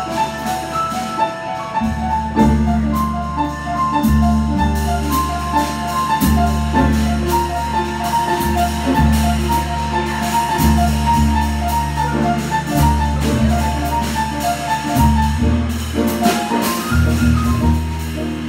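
Modal jazz from a small acoustic group: piano playing quick single-note lines over upright bass and a drum kit's cymbals, with no horns heard.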